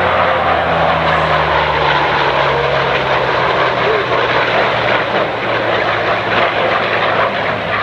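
Mixed formation of jet fighters and a propeller-driven warbird flying past: a loud, steady engine roar of jet noise with a piston-propeller drone, its low engine tones slowly dropping in pitch as the formation passes.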